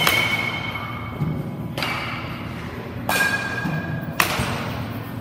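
Baseball bat hitting pitched balls in a batting cage: four sharp cracks about a second apart, each followed by a brief ring, with softer thuds in between.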